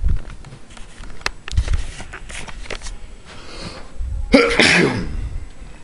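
A man sneezes once, loudly, a little over four seconds in. Before it come the bumps and rubbing of a handheld camcorder being moved about.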